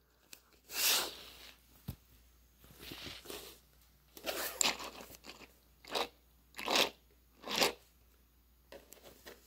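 About half a dozen short rustling, scraping noises from handling close to the microphone, with a single sharp click about two seconds in.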